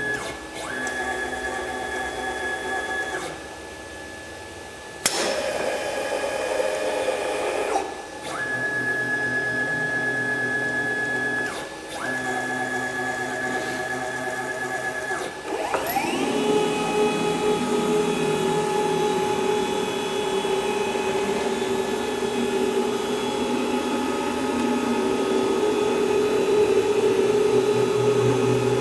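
CNC router's motors whining in a run of separate moves, with short pauses, a quieter spell of about two seconds ended by a sharp click, then a rising whine about halfway through that settles into steady running.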